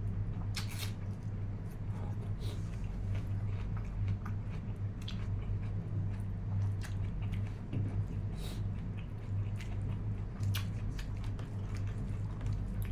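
Close-up eating sounds of someone chewing and biting mutton, with wet smacks and clicks every second or two. Under them runs a steady low electrical hum.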